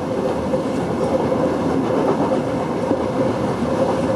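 A train running past on the tracks, its wagons rolling over the rails in a steady rumble with a steady hum running through it.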